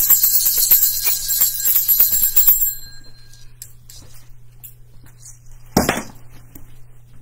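Small bells jingling, shaken in a quick, steady rhythm, stopping a little over two and a half seconds in. A short loud thump comes near the end.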